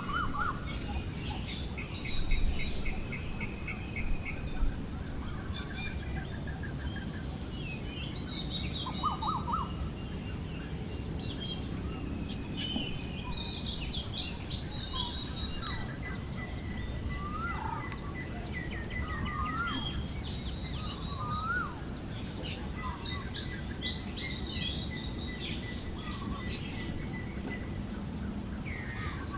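Forest birds chirping and calling in short, scattered phrases, over a steady high insect drone and a low rush of breeze.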